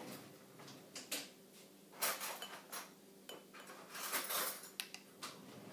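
Metal spoons scraping and clinking against a small bowl and a jelly jar as jelly is scooped out and scraped off, in short, irregular bursts of clicks and scrapes.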